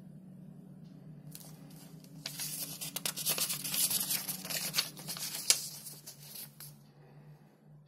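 Paper pages of a small printed booklet being turned and pressed flat by hand, a papery rustle and crinkle that swells about two seconds in and fades near the end, with one sharp crackle about five and a half seconds in. A low steady hum runs underneath.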